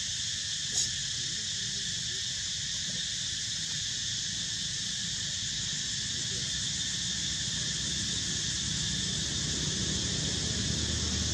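Steady, shrill chorus of insects in several high pitch bands, with one short sharp click about a second in and a low rumble growing louder near the end.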